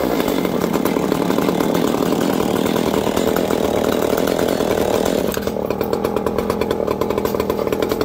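Stihl 009L and 020AV two-stroke chainsaw engines running together at part throttle. About five seconds in, the sound drops to a pulsing idle at roughly six beats a second.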